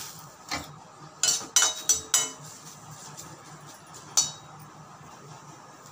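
A metal utensil clinking and scraping against a metal kadai while curry leaves are roasted in it. There is a run of several sharp, ringing clinks between about one and two and a half seconds in, and one more clink about four seconds in.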